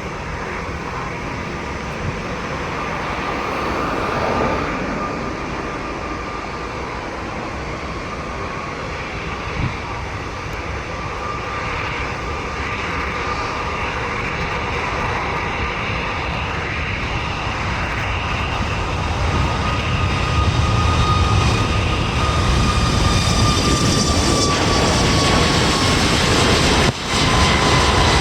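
Boeing 737-8 MAX's CFM LEAP-1B turbofans at takeoff thrust, a steady jet roar with a fan whine, growing louder as the aircraft approaches. Near the end the whine falls slightly in pitch as the jet passes, and the sound briefly drops out.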